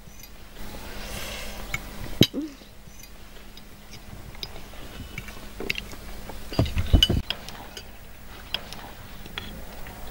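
Scattered light clicks and knocks, with a cluster of heavier thumps about seven seconds in.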